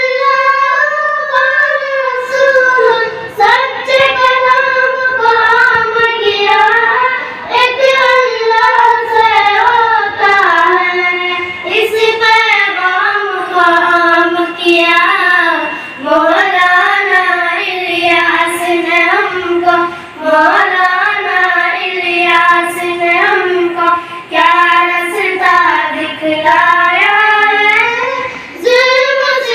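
A young girl singing a naat, an Islamic devotional song, in long held, wavering phrases of about four seconds each, with short breaks for breath between them.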